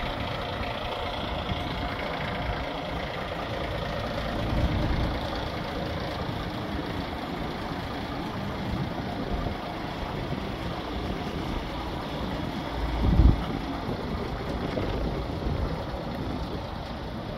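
Diesel engine of a Renault G300 truck idling steadily, with two short low rumbles, the louder one a little past the middle.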